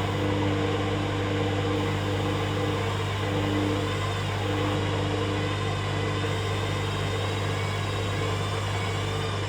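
Hoover Dynamic Next washing machine running on its rinse and spin programme: a steady low motor hum, with a higher tone that cuts in and out every second or so.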